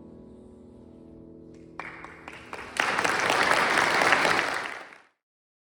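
The last chord of the music ringing and dying away, then audience applause breaking out about two seconds in, swelling a second later and fading out quickly near the end.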